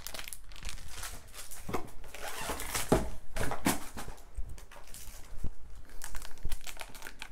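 Clear plastic binder pockets and their packaging being handled: irregular crinkling and rustling of thin plastic with scattered light taps and knocks.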